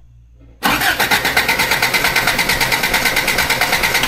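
Starter cranking the engine of a 1991 Toyota pickup with the ignition disabled, so it turns over without firing for a compression test. It gives an even, rhythmic pulsing that starts about half a second in and stops near the end.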